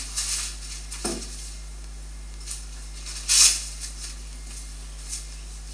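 Paper towel being handled and pulled from a roll: soft rustles and a light knock on the bench, with one louder, short rip about three and a half seconds in.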